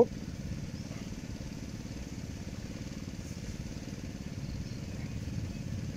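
A small engine running steadily with a low, even rumble.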